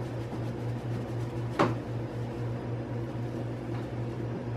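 Steady low hum of a running microwave oven, with a single sharp click about one and a half seconds in.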